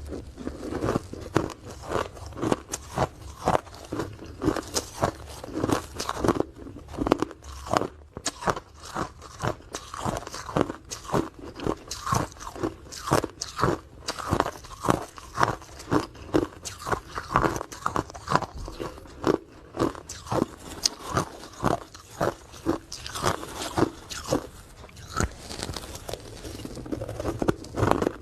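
Close-miked person biting and chewing hard ice, with a steady run of sharp crunches several times a second.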